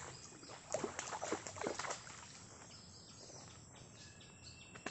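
Crunching and rustling in dry leaf litter during the first two seconds or so, then a quieter stretch with a faint, steady high whistle near the end.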